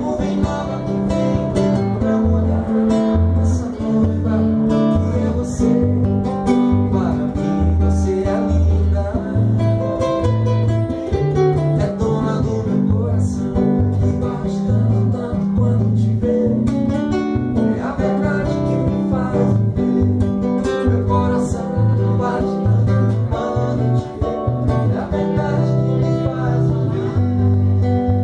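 Acoustic guitar strummed and plucked, with low bass notes moving beneath it, playing a song in a relaxed bar style.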